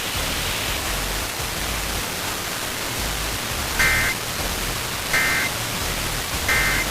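Steady hiss of weather radio static, with three short, identical two-tone data bursts about a second and a half apart in the second half: the EAS end-of-message code closing the alert.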